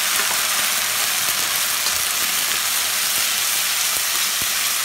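Chopped tomatoes sizzling in hot oil with browned onions and ginger-garlic paste in a steel kadhai, a steady hiss as they are stirred. A few light clicks of the metal slotted spoon against the pan, two of them near the end.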